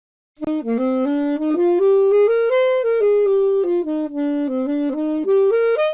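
Solo saxophone playing a short jazzy melody, one note at a time. It climbs to a high point in the middle, steps back down, then runs up again near the end and stops abruptly.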